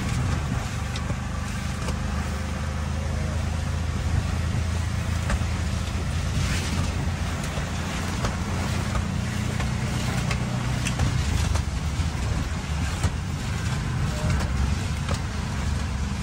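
Auto rickshaw engine running steadily with road and traffic noise, and scattered short clicks and knocks over the top.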